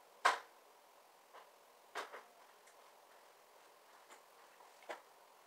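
A few sharp household knocks and clicks, scattered and irregular: the loudest comes just after the start, a pair follows about two seconds in, and another lands near the end.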